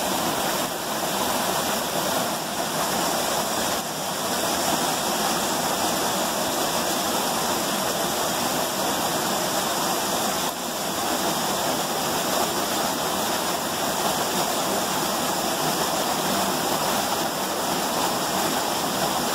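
Small waterfall cascading between boulders into a creek, a steady rushing of falling water.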